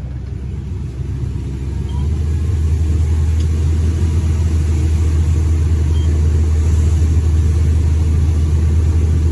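A vehicle engine running steadily as a low rumble, heard from inside the cab; it grows louder about two seconds in, as if the engine is pulling harder.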